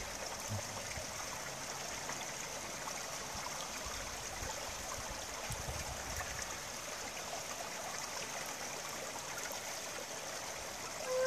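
A creek running and trickling down a rocky cascade, a steady, even rush of water.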